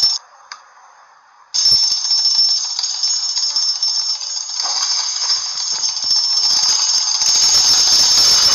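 An alarm bell ringing with a loud, steady, high rattling ring. A short burst at the very start cuts off, and after about a second and a half of quiet the bell rings on without a break.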